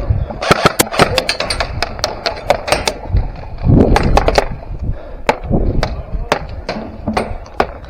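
Airsoft guns firing: quick bursts of sharp cracks in the first few seconds, then scattered single shots.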